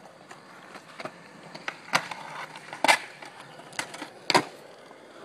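Skateboards rolling on concrete, with sharp clacks of boards striking the ground, three loud ones about a second apart in the second half.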